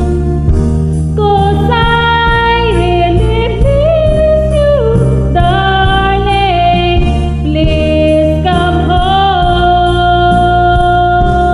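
A woman singing over a karaoke backing track, holding long notes with a slight vibrato.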